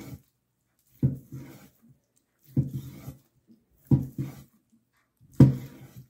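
Long slicing knife drawn through smoked brisket onto a wooden cutting board: a short sawing stroke about every second and a half, four slices in a row.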